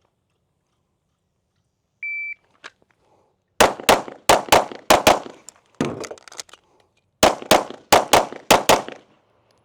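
A shot timer gives one short beep, then a string of about six gunshots in quick succession. A brief pause with lighter clatter follows as the gun is reloaded, then about six more quick shots.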